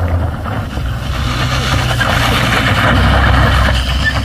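Vehicle engine running steadily with a low hum and a rushing noise, growing louder until near the end.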